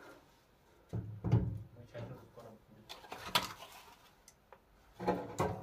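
Split firewood logs being loaded into an iron sauna stove's firebox, knocking and scraping against the metal, with a few sharp knocks about a second in, midway and near the end.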